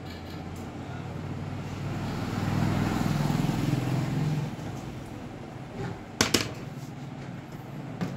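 A motor vehicle engine passing by, swelling to its loudest about three seconds in and then fading. A little after six seconds come two sharp clicks close together.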